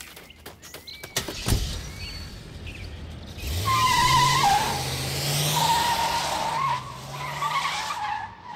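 A thump, then a car engine running hard with tires screeching as it speeds away; the squeal wavers in pitch and fades near the end.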